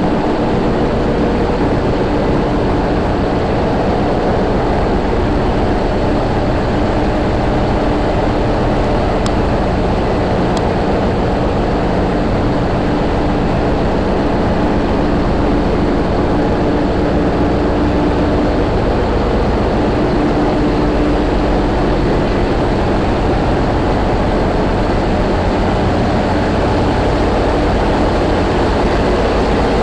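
Heavy ship machinery running steadily and loudly: a low rumble with a constant hum, unbroken throughout.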